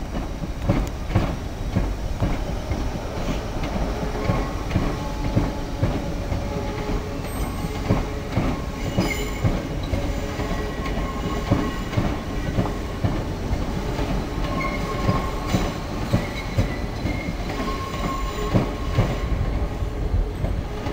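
Departing First Capital Connect Class 313 electric multiple unit, its wheels clattering over the station pointwork with short squeals from the flanges coming and going as it curves away.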